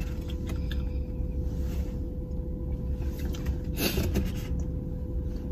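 Steady low rumble of a car's interior, with faint rustling and one short sound about four seconds in.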